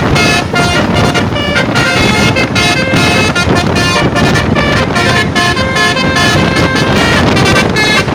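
Bus telolet basuri horn set, a bank of air-horn trumpets, playing a fast tune of short stepped notes, loud, with a low rumble underneath.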